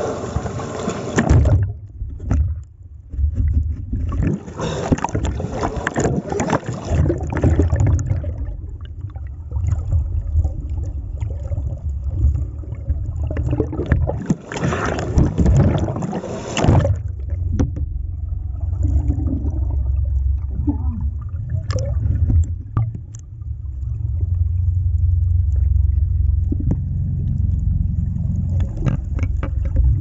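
Sea water splashing and sloshing over a waterproof action camera as it breaks the surface, in three noisy spells: at the start, from about four to eight seconds in, and from about fourteen to seventeen seconds in. Between the spells the camera is under water and the sound turns to a muffled low rumble, which grows louder near the end.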